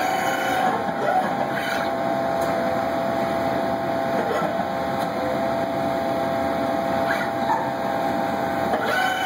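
Small motor-driven machine running steadily, a whine of several fixed tones over a mechanical hiss, with a few brief faint shifts in pitch.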